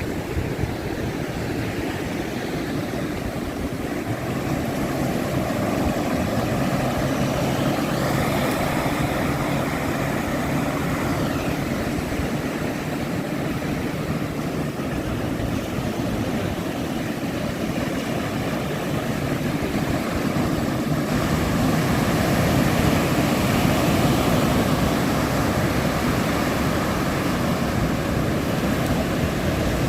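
Motorboat's outboard engines running steadily, a continuous drone with a low hum that grows louder about 5 s in and again about 21 s in.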